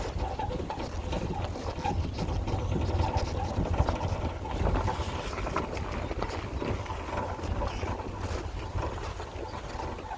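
Vehicle travelling on a gravel road: a steady low rumble of tyres and engine, with wind buffeting the microphone.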